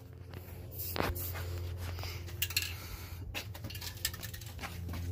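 A steady low hum with a few scattered sharp clicks and knocks, like tools or parts being handled; the hum grows louder near the end.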